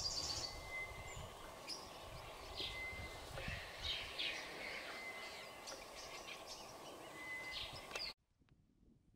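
Outdoor bush ambience: several birds chirping and calling over a steady background hiss, with a thin held whistle that recurs several times. The sound drops off suddenly near the end.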